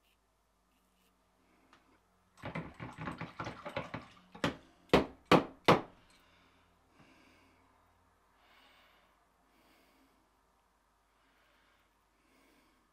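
A Wilkinson Sword butterfly double-edge safety razor rattles briefly against a hard surface, then is knocked four times in quick succession to clear lather from the head. After that come a few faint scrapes of the razor over lathered stubble.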